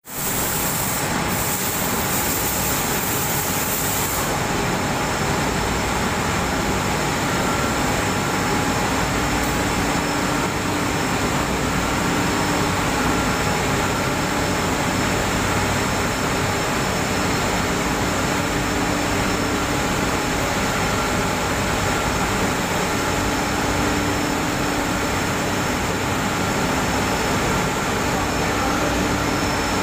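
Textile waste opening machine running, its chain-driven rollers and beaters turning waste into loose cotton: a steady, loud mechanical rush with a few faint steady tones, unchanging throughout.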